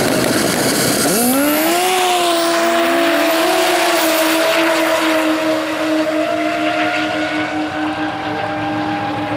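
Drag-racing snowmobiles launching off the line. About a second in the engines sweep sharply up in pitch, then hold a steady, slowly climbing note as the sleds accelerate down the strip, fading with distance in the second half.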